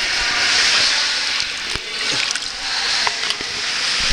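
Pool water sloshing and splashing right at the microphone, with a few faint knocks.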